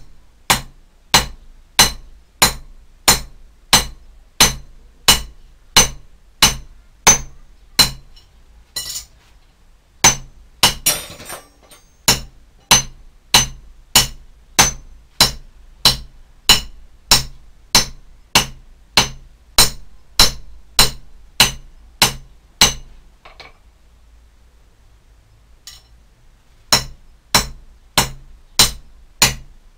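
Hand hammer striking a cold flat metal bar on the horn of an anvil, a little under two blows a second, each blow with a bright metallic ring. The hammering pauses twice for a few seconds before starting again.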